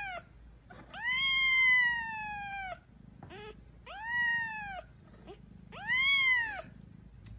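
Very young kitten mewing: three long, high-pitched cries, the first the longest and sliding down in pitch, with a few short squeaks between them.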